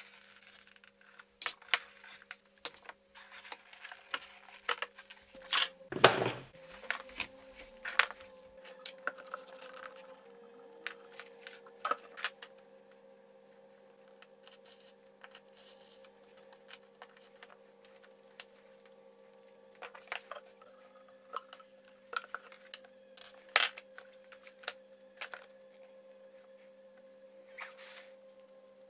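Leather being cut with a utility knife along a metal set square on a cutting mat: scrapes of the blade and many sharp clicks and clinks as the square and knife are handled and set down, the loudest a knock with a dull thud about six seconds in. A faint steady hum runs underneath.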